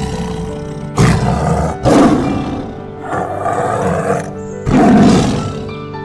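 Tiger roaring and snarling three times, with calls starting about one, two and nearly five seconds in, over steady background music.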